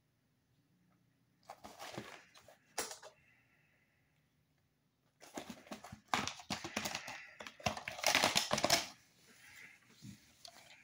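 A plastic VHS clamshell case being handled, opened and the cassette taken out: clicking and rattling plastic in two spells, a short one early and a longer, louder one about five seconds in.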